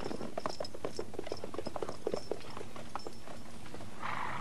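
Horses galloping: quick, uneven hoofbeats, several a second, with a brief rush of hissing noise near the end.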